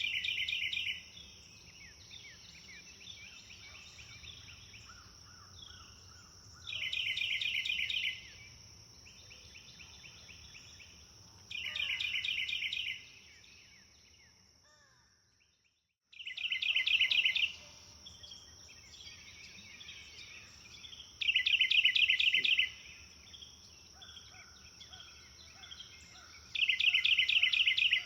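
A songbird repeating a loud, rapid trill of about a second and a half, roughly every five seconds, with softer calls from other birds between. Under it runs a steady high insect drone. The whole sound fades out briefly about halfway through, then comes back.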